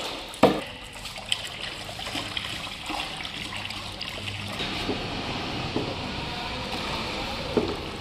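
Liquid poured from buckets into a plastic drum of water, splashing and trickling steadily as the mix is stirred with a wooden stick. A sharp knock about half a second in.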